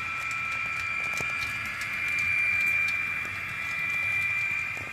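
Model freight train running on the layout track: a steady high-pitched whine over a low rumble, with faint scattered clicks of the cars' wheels on the rails.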